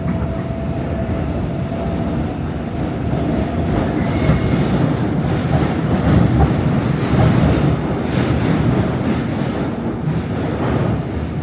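Old Seoul Subway Line 3 train running, heard from inside the carriage: a loud steady rumble of wheels on track, with a thin high wheel squeal about a third of the way in.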